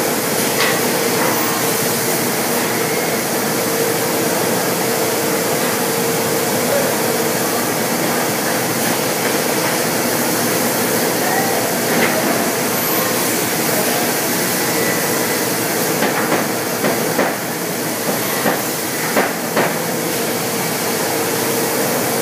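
Pade CNC machining center cutting wooden chair components: a steady loud run of spindle and machine noise with a hiss and a constant whine that fades out in the middle and comes back near the end. Several sharp knocks and clicks, most of them in the second half.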